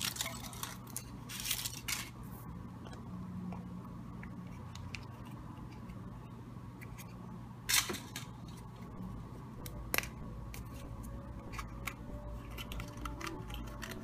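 Unwrapping a Kinder Surprise egg: the foil wrapper crinkles, a louder crack comes just before eight seconds in as the chocolate shell breaks around the toy capsule, then sharp little clicks of the yellow plastic capsule being handled and snapped open near the end. A low steady hum runs underneath.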